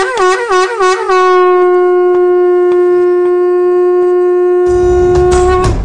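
Conch shell (shankh) blown: one long loud horn note that wavers up and down for about the first second, then is held steady. A low rumble comes in under it near the end, and then the note cuts off.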